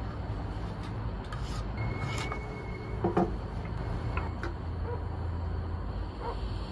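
Wooden spoon stirring diced onions in a frying pan, with scraping and a few short knocks against the pan, the loudest about three seconds in, over a steady low rumble.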